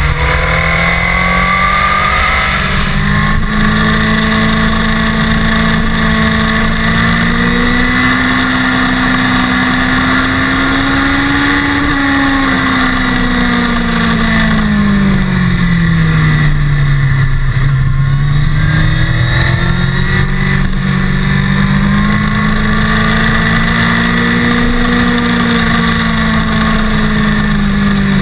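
Sportbike engine heard from a camera mounted on the bike while riding, with wind rushing over the microphone. The engine note climbs smoothly for about ten seconds, falls away over a few seconds as the rider rolls off, then climbs again and eases near the end.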